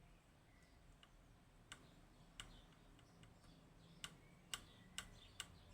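Faint sharp clicks of a pick and tensioner working the levers of a Union G110 five-lever lock: six separate clicks, coming faster in the second half.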